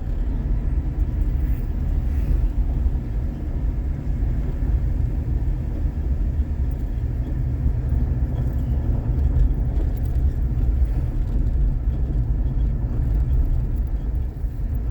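Car being driven: a steady low rumble of engine and tyres on the road.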